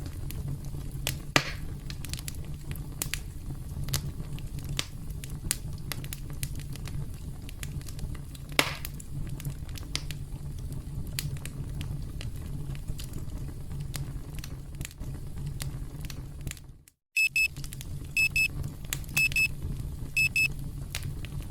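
Campfire crackling, with frequent sharp pops over a low rumble. About seventeen seconds in the sound cuts out briefly, then the countdown timer's alarm beeps in quick high-pitched groups about once a second while the crackling continues.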